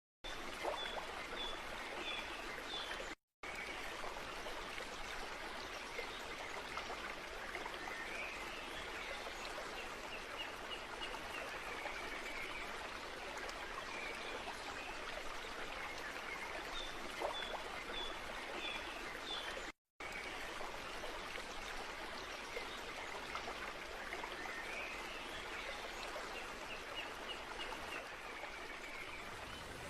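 A stream flowing steadily, with birds chirping over it: runs of short high chirps and warbling phrases that rise and fall. The sound cuts out completely for a moment twice, about 3 seconds in and about 20 seconds in.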